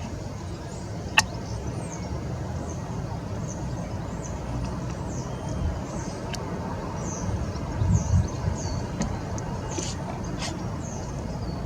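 Small garden birds chirping, short high falling notes repeated all through, over a steady low rumble. A sharp click about a second in, with a few fainter clicks later.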